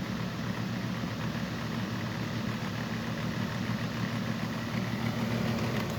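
10-inch Massey box fan running on high: the steady hum of its small C-frame motor under a rush of air, with a rattle that is pretty rattly.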